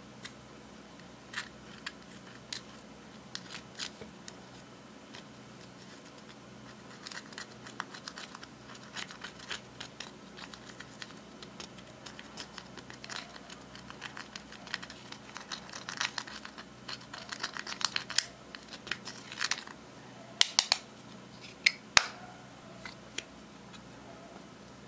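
A small spatula scraping and picking pressed eyeshadow out of its compact, a run of short scratches and clicks. They are sparse at first, get busier from about seven seconds in, and there are a few louder clicks near the end.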